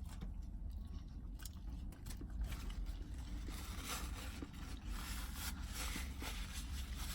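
Rustling and light clicking of a takeout burger and its paper wrapper being handled, growing busier a few seconds in, over a steady low rumble.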